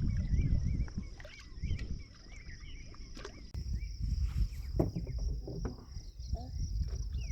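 Canoe paddling on a river, with short knocks and splashes of the paddles now and then, over a steady high insect drone and uneven low rumbling. A wavering high call is heard in the first two seconds.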